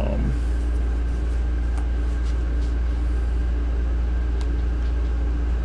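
Steady low hum of room or equipment noise, with a few faint clicks.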